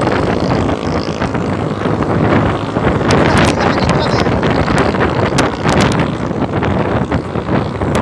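Wind rushing over the phone's microphone on a moving motor scooter, mixed with the scooter's engine and road noise, with sharp crackles of buffeting from about three seconds in.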